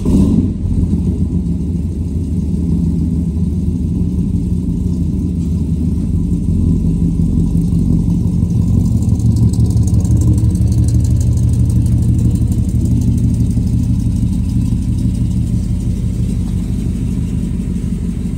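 1972 Chevy K30 four-wheel-drive truck's engine running at low speed with a steady deep exhaust rumble as it rolls slowly past, a little louder around the middle when the exhaust tip is closest.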